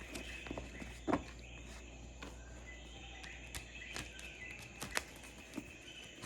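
Recorded jungle ambience playing in the background: a steady chorus of high insect and bird calls, with scattered short clicks and taps, the loudest about a second in.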